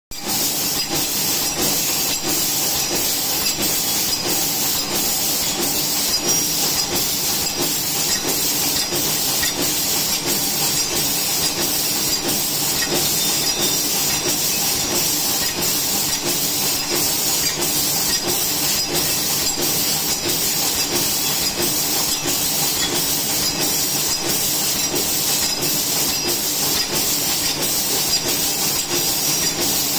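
Automatic plastic flatware and napkin packaging machine running: a steady mechanical clatter and hiss with a regular click a little more than once a second.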